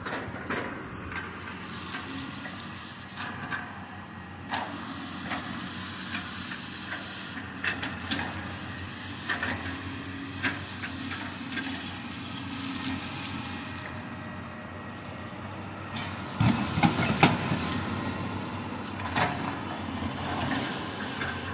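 A Cat knuckleboom log loader's diesel engine runs steadily, with its hydraulics hissing as the grapple handles tree-length pine stems. Scattered sharp cracks and snaps of limbs and wood sound throughout, and the loudest cluster of cracking comes about sixteen seconds in.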